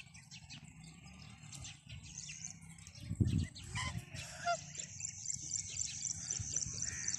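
Domestic goose calling softly among its goslings, with the goslings' short high peeps scattered throughout. A dull low bump about three seconds in is the loudest sound, and a steady high insect trill runs underneath, stronger in the second half.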